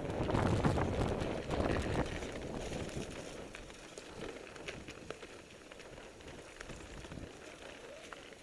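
Wind rushing over the microphone and a blokart's wheels rolling on shell-strewn sand, with scattered crackling clicks. The noise dies down over the first few seconds as the kart slows.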